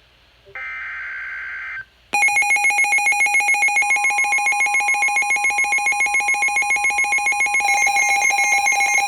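The last burst of a NOAA Weather Radio SAME header, a buzzy data tone, announcing a severe thunderstorm warning. About two seconds in, a loud, rapidly pulsing electronic alert alarm starts, and a steady alert tone joins it about four seconds in.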